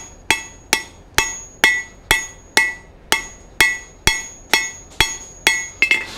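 Blacksmith's hand hammer striking a glowing-hot 4142 steel bar on an anvil, about two blows a second, each blow with a short metallic ring, while the taper of a hot-cut chisel is forged. The hammering stops just before the end.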